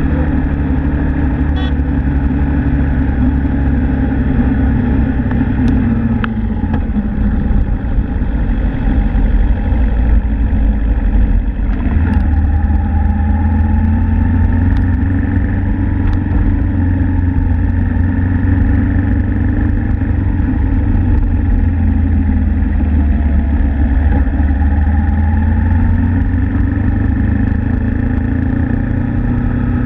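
Suzuki Inazuma GW250's parallel-twin engine running on the move. Its pitch drops about six seconds in, then rises and falls slowly twice with the throttle.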